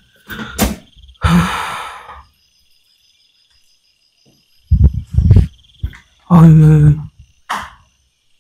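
Night insects trilling steadily in the background, with a man's heavy breathing and a hushed, voiced sigh. There are a couple of low thumps about five seconds in.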